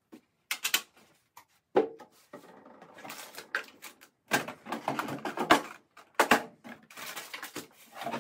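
Clear acrylic organizer trays loaded with hair clips and small items being lifted out of a bathroom vanity drawer and set down on the countertop: irregular plastic clicks, knocks and rattles.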